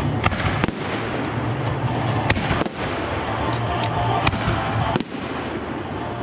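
Aerial fireworks shells bursting: a dense, continuous crackle with several sharp bangs through it.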